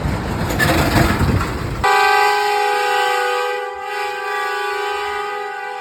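Semi truck's train-style air horn sounding one long, steady chord of several notes at once. It starts about two seconds in, after a stretch of rumbling truck traffic.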